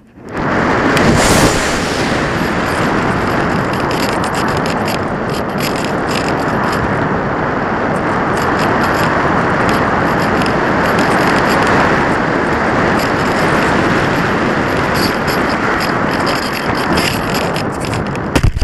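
Wind rushing over the onboard camera of a discus-launch glider in flight: a loud steady rush that starts abruptly at the launch, with a sharper whoosh about a second in, and stops suddenly with a short knock near the end as the glider is caught by hand.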